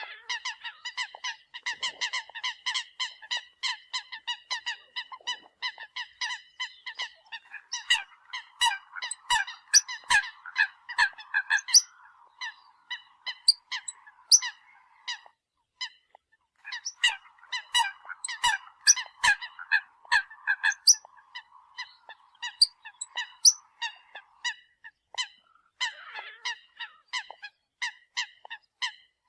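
Eurasian coots calling: a rapid, continuous run of short honking calls, several a second, with a brief lull about halfway through.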